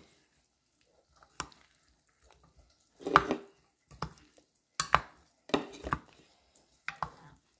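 A clear plastic spoon tossing a bean and vegetable salad in a ceramic dish, scraping and knocking against the dish in about six short, irregular strokes.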